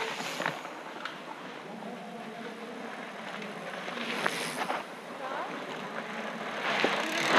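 Mountain bikes rolling past close by on a dirt forest trail: three passes, each a rush of tyre noise on the soil, near the start, about four and a half seconds in, and near the end, with a few sharp clicks from the bikes.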